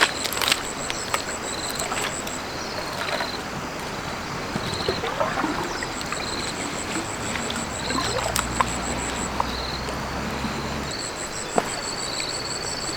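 Water trickling and sloshing, with a few small knocks and a high, rapid pulsing chirp repeating above it. A low steady hum joins in about eight seconds in and stops about three seconds later.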